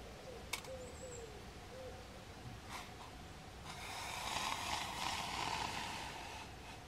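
Water on the boil, a rushing, bubbling hiss that swells for about three seconds in the second half and then dies down. Near the start, a faint low hooting bird call.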